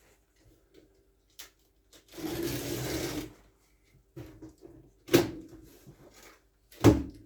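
Cardboard shipping boxes being handled: a scraping, rustling slide of cardboard lasting about a second, then two sharp knocks a little under two seconds apart.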